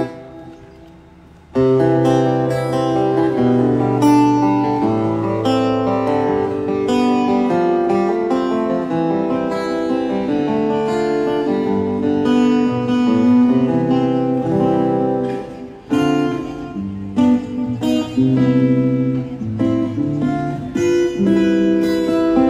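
Amplified acoustic-electric guitar played during a sound check: a chord rings out and dies away, then from about a second and a half in a steady run of chords and single notes with a moving bass line, breaking off briefly about sixteen seconds in.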